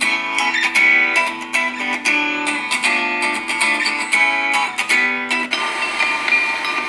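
A Samsung Galaxy tablet's stock ringtone playing: a plucked-string melody of quick notes, about four a second, that settles into a held, ringing chord for the last second or so.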